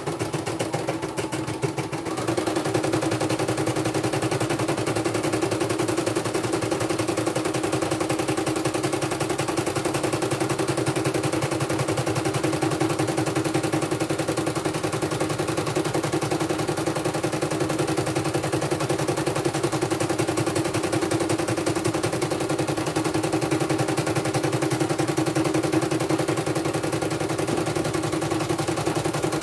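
CNY portable computerized embroidery machine stitching a design: the needle running in a fast, even rattle of stitches over a steady motor hum, a little louder from about two seconds in.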